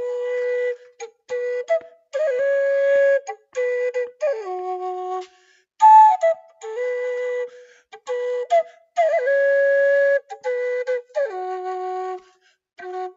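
Wooden end-blown flute playing a slow melody of held notes, with small slides into some notes and short breaks between phrases.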